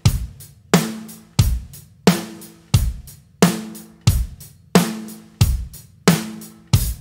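A rock drum beat on a Pearl drum kit: bass drum and snare alternate evenly, about one and a half strokes a second, with the snare backbeat played as loud rim shots that ring on after each hit.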